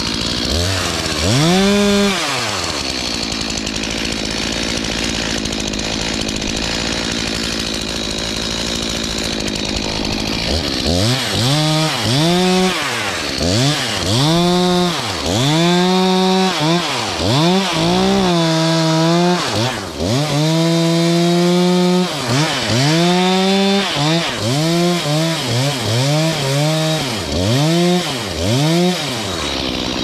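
STIHL two-stroke chainsaw revving once, then idling steadily for several seconds. It is then revved up and down again and again, about once a second, with one longer held rev, as it cuts into a tree limb.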